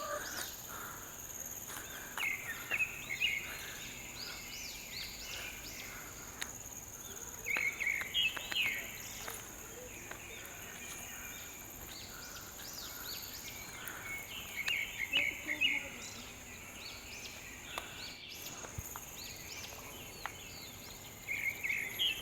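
Forest ambience: a steady high-pitched insect drone throughout, with short bursts of bird chirping about four times.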